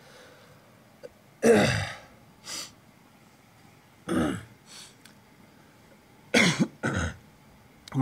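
A man coughing in three bouts about two and a half seconds apart, each a loud cough followed by a weaker one.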